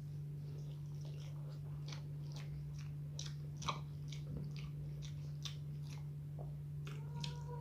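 Close-up chewing and biting: a person eating spiced eggplant and omelette, with irregular wet mouth clicks every half second or so over a steady low electrical hum.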